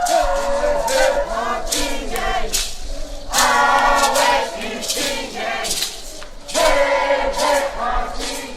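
A group of voices singing an Indigenous chant together, with sharp percussive strikes through it.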